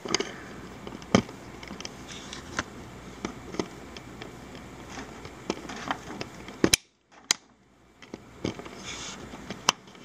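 Small flat-bladed screwdriver tip clicking and scraping against the plastic housing of a TSA luggage lock while its snap tabs are pried up: scattered sharp clicks, the loudest about two-thirds of the way in.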